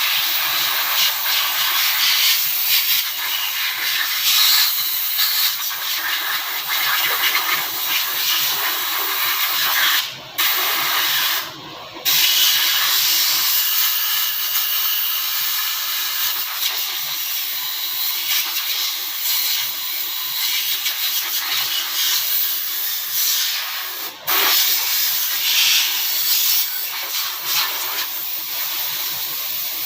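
Steady, loud hiss of spray from a hand-held nozzle, cut off briefly about ten seconds in, again around twelve seconds, and once more near 24 seconds, as if the trigger were let go.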